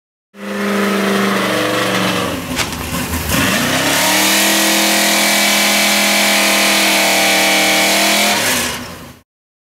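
An engine running hard under a loud hiss of rushing, spraying water. Its pitch sags about two and a half seconds in, climbs back and holds steady, then falls away and cuts off near the end.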